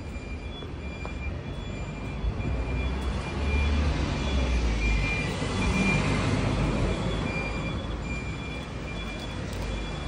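Street traffic with a low engine rumble and tyre noise that swells as a vehicle passes close by in the middle, then eases off. A short high electronic beep repeats evenly throughout.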